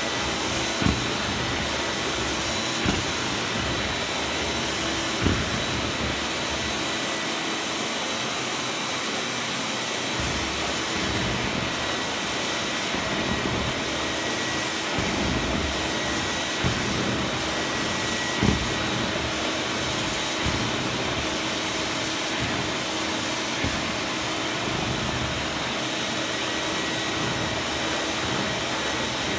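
Zelmer Wodnik 619.5 water-filter vacuum cleaner running steadily in carpet-washing mode, a steady rush of suction with a high motor whine, as its washing nozzle is drawn over a carpet. A few brief low knocks sound over it.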